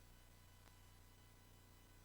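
Near silence: a faint steady hum and hiss from the VHS recording.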